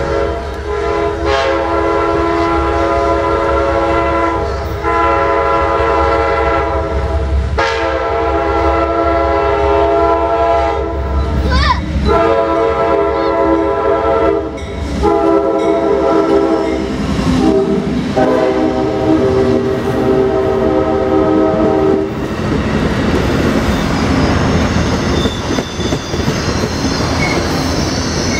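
Amtrak GE Genesis diesel locomotive's multi-chime air horn sounding a series of long blasts as the train approaches, for about twenty seconds. The horn then stops, and the rumble and clatter of the locomotive and stainless-steel passenger cars rolling past the platform take over.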